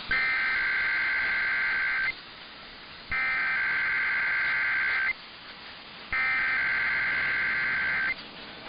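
Emergency Alert System SAME header data bursts: three digital tone bursts of about two seconds each, a second apart. This coded header opens an EAS alert, here a Required Weekly Test.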